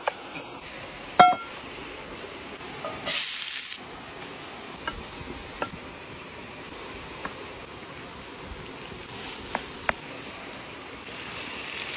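Outdoor campfire cooking: a sharp metallic clink about a second in, then chopped meat hits a hot frying pan and sizzles loudly, dying away within a second. Light taps of a wooden spoon against the pan follow, and the sizzling swells again near the end, over the steady rush of a small waterfall.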